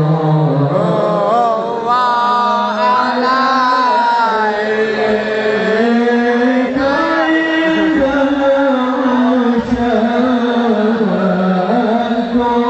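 Background music: a solo voice chanting long, wavering melismatic notes in the style of an Islamic sholawat, the pitch gliding and held for a second or more at a time.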